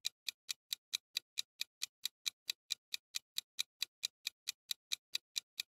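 Countdown-timer sound effect: an even clock-like ticking, about four to five ticks a second.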